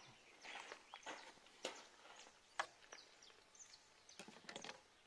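Near silence: faint outdoor background with a few soft clicks and some faint, short high chirps.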